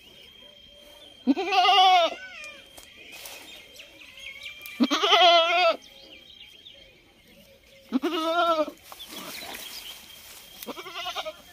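Black male goat bleating four times, each call about a second long with a quavering, wavering pitch; the first three are loud and the last, near the end, is quieter.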